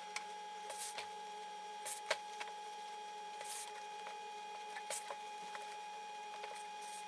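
Soft, scattered rustles and light taps of suit trouser fabric being handled and laid over a wooden pressing buck, over a steady faint hum.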